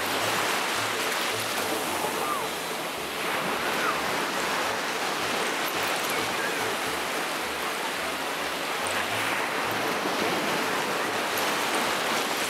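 Small waves washing up a sandy beach, the surf swelling and easing as each wave comes in.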